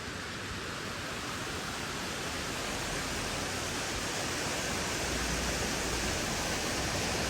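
White water of a mountain stream rushing, a steady hiss that grows slowly louder.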